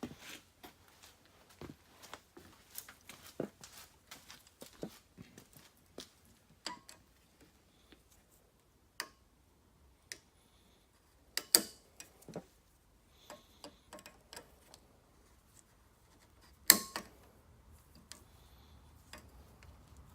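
Small metal clicks and taps of pliers working a snap ring (retaining clip) into a universal joint's bearing cap, scattered and irregular, with two sharper, louder clicks, one past the middle and one near the end.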